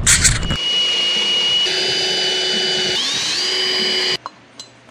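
Electric drill motor whining steadily while boring a hole in a steel block. Its pitch sags and recovers about three seconds in as the bit loads up, and it stops abruptly near the end. A brief low rumble of the truck cab comes just before the drilling starts.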